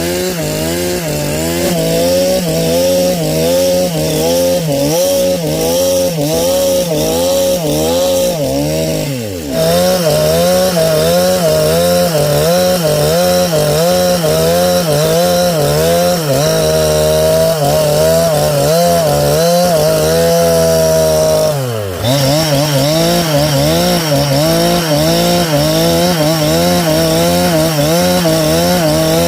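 Chainsaw running under load as it rips lengthwise through a log, its engine pitch wavering rhythmically. Twice the engine speed briefly sags and then picks back up.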